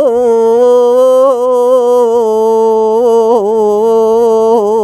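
An elderly woman's unaccompanied voice holding one long sung note of a traditional Gulf folk song, nearly level in pitch with small ornamental turns now and then and a slight drop about three seconds in.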